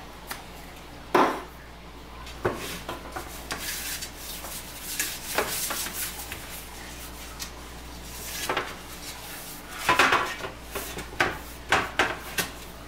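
A hand rubbing oil across a metal baking sheet, with irregular scrapes and light knocks of the pan, several of them close together near the end.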